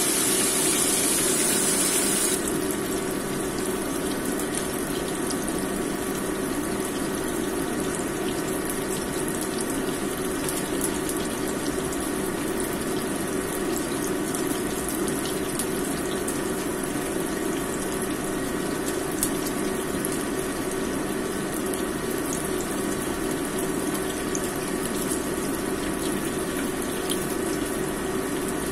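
A seasoned fish piece shallow-frying in hot oil in a wok: a steady sizzle with scattered small pops. The hiss is brighter and louder for the first couple of seconds, then settles to an even sizzle.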